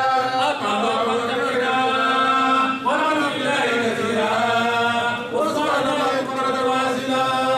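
Male voice chanting in long, drawn-out melodic phrases, each held for two to three seconds before a short break.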